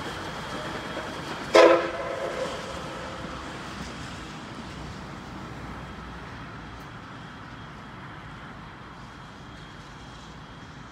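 Steam whistle of the C58 363 steam locomotive sounding one short, loud blast of several tones together about a second and a half in, dying away over about a second. Under it, a steady running noise fades gradually as the locomotive moves off.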